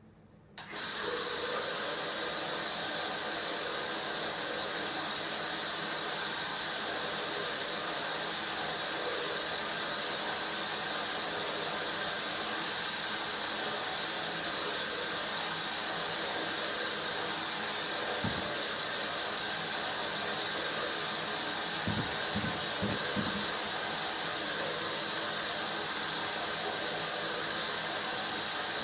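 A loud, steady hiss switches on suddenly about half a second in and runs on unchanged, with a few faint low knocks partway through.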